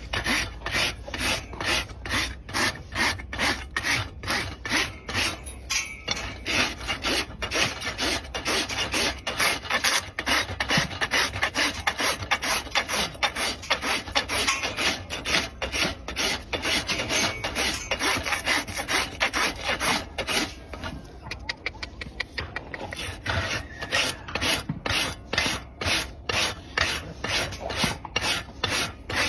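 Farrier's rasp filing a horse's hoof in quick, even back-and-forth strokes, easing off briefly about two-thirds of the way through before resuming.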